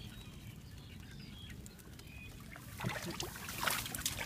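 Hands splashing and scooping in a small water-filled hole in the ground. It is quiet at first with a few faint chirps, and a cluster of rustling and small splashes starts a little under three seconds in and grows louder.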